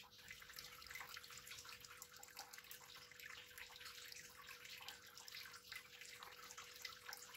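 Faint pouring and dripping of cooked chocolate pudding mixture from a ladle into a plastic pudding mould, with soft irregular splashes, over a faint steady hum.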